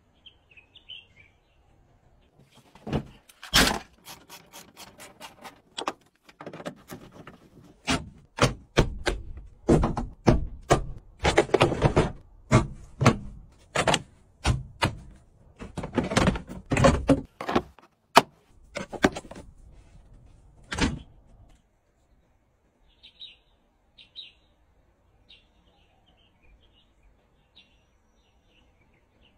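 An irregular series of sharp knocks and thunks, several a second at their busiest, stopping about 21 seconds in. Faint bird chirps follow near the end.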